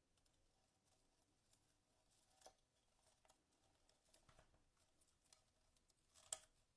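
Faint scratching and crackling of a dry grapevine wreath as a pipe cleaner is threaded through its vines, with a sharper crackle a little past six seconds in.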